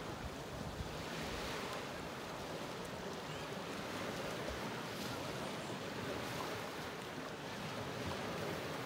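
Small waves washing and breaking steadily on the shore, with some wind buffeting the microphone.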